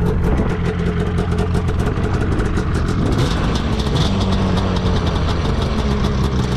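Snowmobile engine idling steadily, a continuous low running note with a fast, even pulse.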